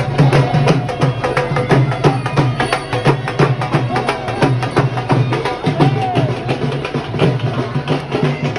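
Loud music with fast, dense drumming and a wavering melody line over it.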